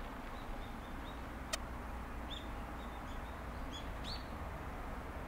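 Birds chirping: short, high chirps repeated every half second or so, over a steady low background rumble, with one sharp click about a second and a half in.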